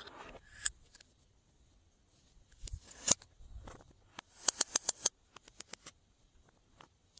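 Glossy slime being pressed and poked by hand, giving sharp wet clicks and pops: single ones early and about three seconds in, a quick run of about five in the middle, then a few fainter ticks.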